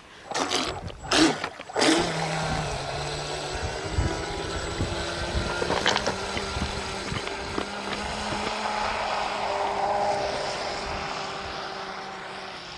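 ProBoat Blackjack 29 RC catamaran's brushless motor whining at a steady pitch as the boat runs at speed, fading near the end as it moves away.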